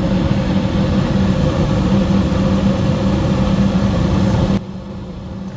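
Rheem 90% gas furnace running with its high pressure switch jumpered out: a steady rushing noise with a low hum. It cuts off abruptly near the end, leaving a quieter hum.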